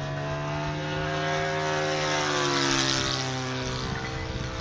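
Propeller engine of a radio-controlled Hawker Hurricane Mk1a scale model flying past, loudest about halfway through and then dropping in pitch as it moves away. A steady low hum runs underneath and stops near the end.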